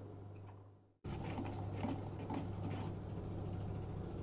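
Jaggery syrup boiling in a pan: irregular small bubbling pops over a low steady hum. The sound fades out and cuts off about a second in, then the bubbling resumes.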